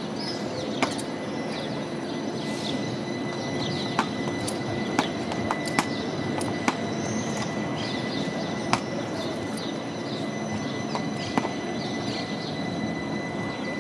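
Street ambience as a CAF Urbos 3 tram rolls slowly past: a low steady rumble of the tram and street with a thin steady high tone under it. Birds chirp throughout, and about eight sharp clicks sound at irregular moments.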